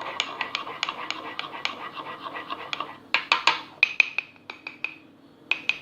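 A spoon stirring cake batter in a mug, clinking against the sides about three times a second. From about three seconds in come a few sharper clinks that ring briefly, the spoon knocked against the mug.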